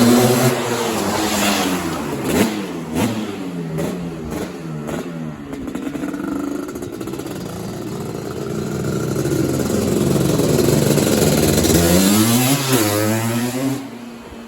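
1985 Suzuki LT250R two-stroke quad with a full FMF exhaust, ridden and revved. The engine pitch rises and falls repeatedly. It builds up loud again past the middle, then falls in pitch and fades sharply near the end.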